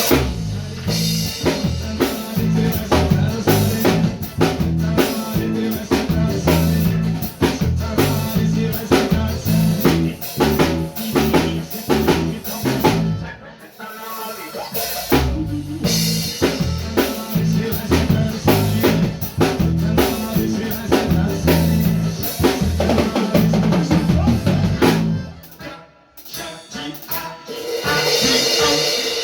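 Electric bass guitar and drum kit playing a groove together: stepped, repeating bass notes under steady kick, snare and rimshot hits. The playing thins out briefly about halfway through and again near the end.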